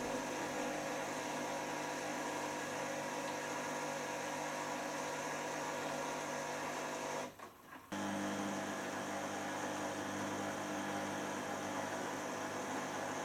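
Beko washing machine running with its transit bolts still in and its drum bearings worn: a steady motor and drum hum. It cuts out briefly about halfway through, then comes back with a different pitch as the second spin gets under way.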